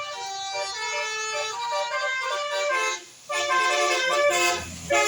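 Bus 'telolet' horn, a set of trumpet horns playing a tune of stepping notes; it breaks off briefly about three seconds in, then resumes. A bus engine's low running comes in near the end.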